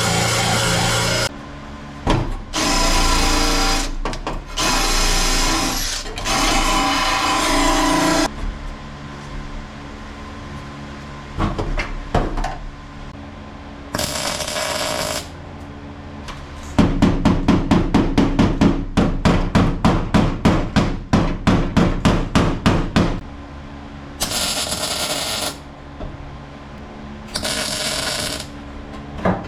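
Angle grinder with a wire wheel run in short bursts of one to two seconds, cleaning sheet-metal floor pan to bare metal ahead of welding. Around the middle comes a run of quick, even metal strikes, about three a second, like a hammer knocking the sheet steel flat.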